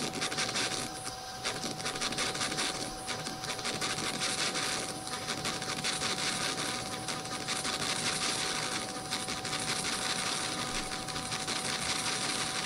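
Glitching audio-effects processing: a dense crackling hiss with one steady tone held through it, an effect chain gone wrong that needs resetting.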